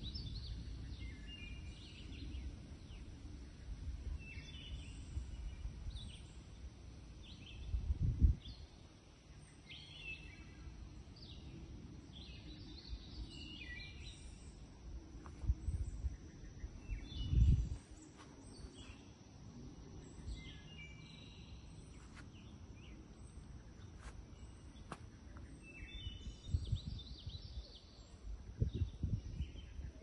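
Birds chirping and calling in short, scattered notes over a steady outdoor background. Low rumbles of wind on the microphone come about 8 and 17 seconds in and are the loudest sounds.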